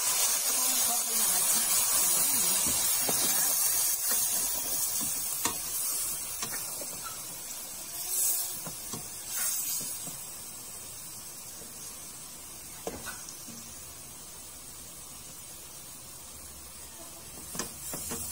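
Pork sizzling in a hot stainless steel pot as soy sauce is ladled in and stirred, the sizzle loud at first and dying down gradually. A few light clicks of the spatula against the pot.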